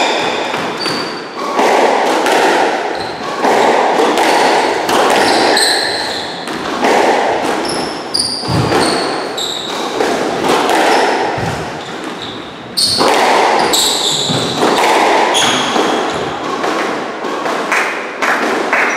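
Squash rally: the rubber ball is struck by rackets and hits the court walls in repeated sharp, echoing knocks, mixed with short high squeaks of shoes on the wooden court floor.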